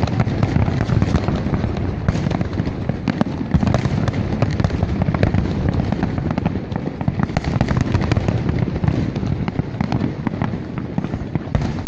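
Fireworks display: a continuous barrage of bangs and crackling bursts over a heavy low rumble.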